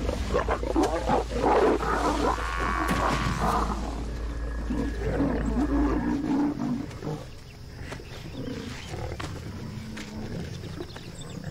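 Lions growling and snarling as they bring down and hold a Cape buffalo, loud and dense for the first four seconds with a drawn-out pitched call, then dropping to quieter, scattered growls as they feed at the carcass.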